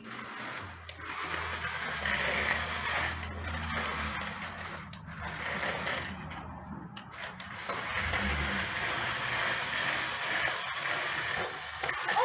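Small electric drive motors in the base of a remote-control inflatable BB-8 whirring as it is driven, in two runs of several seconds with a short pause about halfway.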